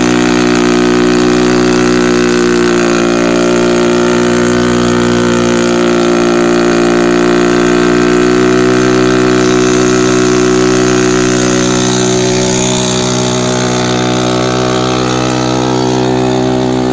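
Motorcycle engine held at steady high revs during a stationary burnout, its rear tyre spinning against the road. The pitch stays nearly constant throughout.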